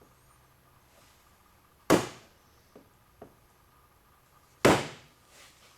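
Two sharp hammer blows on a screwdriver driving a metal tab down, nearly three seconds apart, with two light taps in between.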